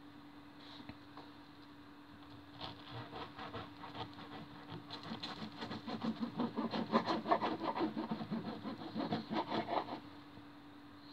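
A knife sawing back and forth through a slice of toast on a wooden chopping board: quick rasping strokes that grow louder and faster, then stop abruptly near the end.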